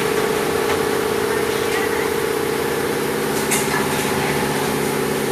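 CNC corner-cleaning machine for welded window frames running with a steady motor hum, with a brief sharper noise about three and a half seconds in.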